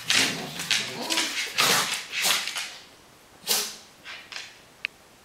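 Two small dogs play-fighting, with a run of short growls and snarls that thin out after about three seconds. A brief high squeak comes near the end.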